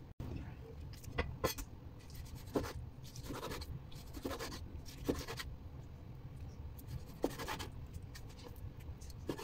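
Cleaver slicing raw chicken breast on a bamboo cutting board: the blade knocks on the wood about once a second, with scraping strokes between the knocks.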